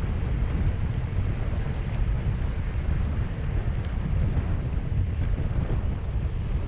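Wind buffeting the microphone: a steady, low rush of noise.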